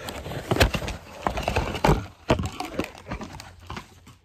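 Irregular knocks, clicks and rustling of objects being handled close to the microphone.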